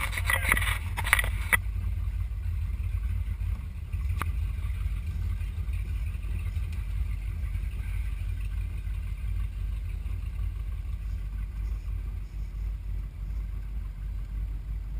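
Motorboat engine running with a steady low rumble. A few sharp knocks come in the first second or two, and one more about four seconds in.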